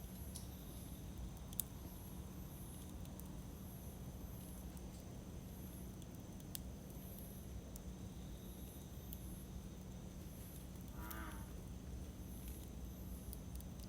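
Campfire burning with scattered crackles and one sharp pop, over a low steady rumble. Insects chirp faintly and high, about once a second, and a short animal call sounds once about eleven seconds in.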